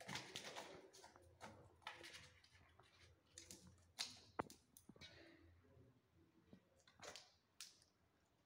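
Faint scattered rustles, taps and clicks of two kittens scuffling and scrambling against a cardboard box and a plastic sheet, with a sharper click about four seconds in.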